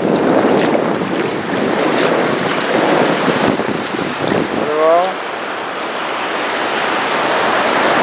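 Sea surf washing up over a sandy beach, louder in the first half, with wind buffeting the microphone.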